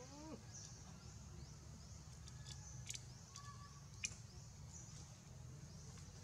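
Faint outdoor ambience: small birds chirping high and thin, over and over, with a few short whistled notes, above a steady low rumble. Two sharp clicks come a little past the middle.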